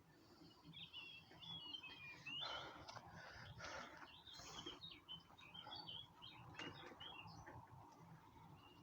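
Small songbirds chirping and twittering faintly, many quick high chirps overlapping throughout.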